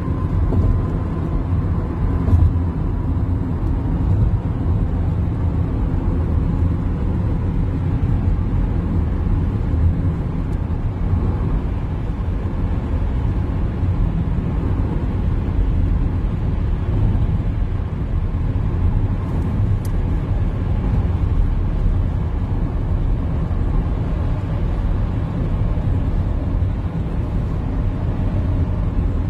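Steady low rumble of a car driving on a freeway, heard from inside the cabin: tyre and engine noise.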